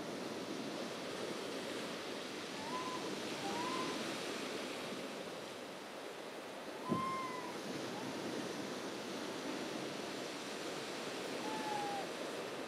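Sea surf washing steadily on a shingle and sand beach, with a few short faint high calls and a single brief knock about halfway through.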